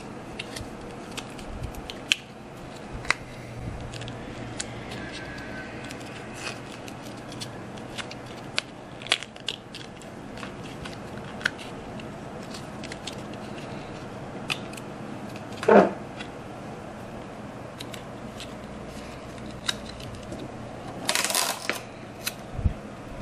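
Scattered light clicks and taps of small model-making parts and tools being handled, with one louder knock about sixteen seconds in and a short burst of rustling clatter near the end.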